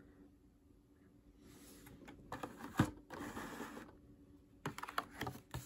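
Carded die-cast toy cars in plastic blister packs being handled and shuffled: cardboard and plastic rustle and scrape, with one sharp click in the middle, the loudest sound, and a quick run of light clicks near the end.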